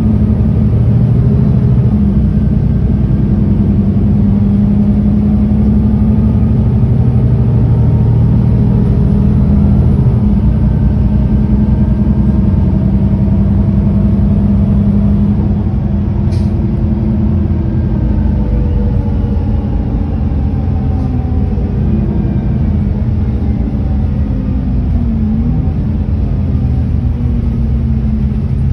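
Solaris Urbino 18 III articulated city bus driving, its engine and drivetrain running loud and steady. The pitch rises and falls as the bus accelerates and slows. A single sharp click comes about halfway through.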